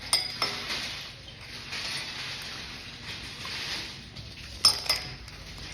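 Rustling and handling of a toy and its packaging, with a couple of sharp clicks at the start and a louder pair of clicks near the end.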